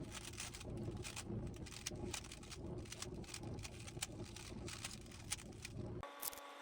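A Rubik's cube being turned by hand in a fast run of small plastic clicks and clacks. About six seconds in the clicking breaks off and a faint steady tone is heard instead.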